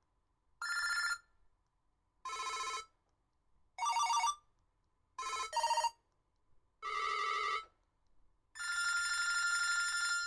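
A BlackBerry 8330 Curve playing a run of short electronic ringtone and alert previews through its loudspeaker, a different tone about every second and a half. The fifth comes as two quick notes, and the last rings on for about two seconds.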